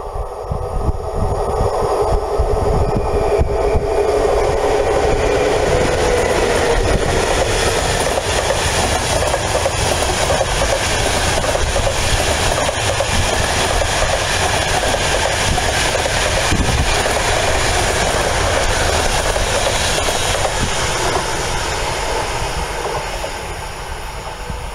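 Express passenger train hauled by a ZSSK class 350 electric locomotive passing close by at speed: a steady tone from the approaching locomotive in the first few seconds, then the continuous rumble and clatter of the coaches' wheels on the rails, fading near the end as the train moves away.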